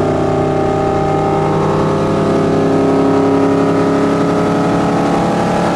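Tow boat's engine running at a steady cruising pitch while pulling a wakeboarder, over a hiss of water and wind.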